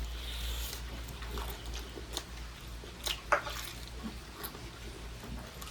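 Close-up eating sounds: a person chewing and biting food, with scattered wet clicks and a couple of sharper smacks about three seconds in, over a low steady hum.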